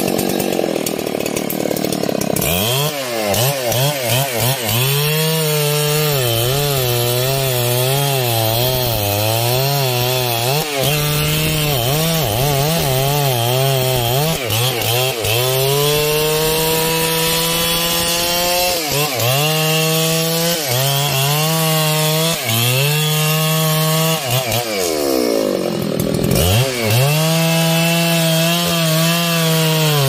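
Large two-stroke chainsaw cutting into trembesi (rain tree) wood, its engine pitch wavering and dipping as it loads in the cut. The revs drop sharply about two seconds in, and again shortly before the end, then pick back up.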